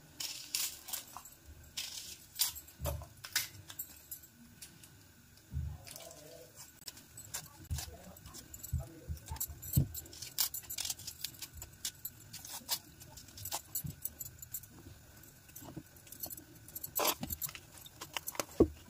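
Knife chopping garlic and chillies on a cutting board: a string of irregular clicks and taps as the blade strikes the board.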